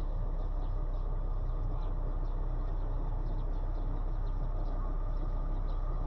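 Steady outdoor noise, strongest in the low range, with faint short high chirps a few times a second.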